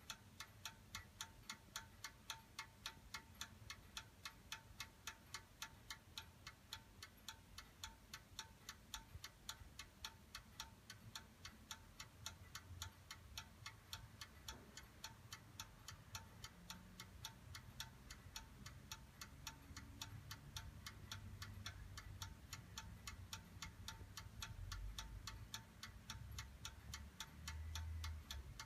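Japy Frères French ormolu mantel clock's pendulum movement ticking, a quiet, even tick a few beats a second. A faint low rumble rises under the ticking in the second half.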